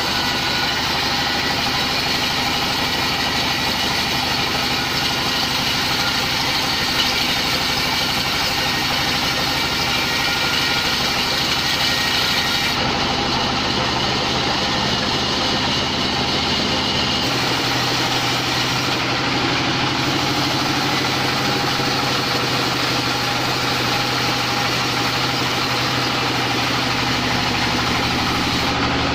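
Large timber band saw and its drive machinery running steadily, a continuous mechanical drone; the tone shifts a little about a third and again about halfway through.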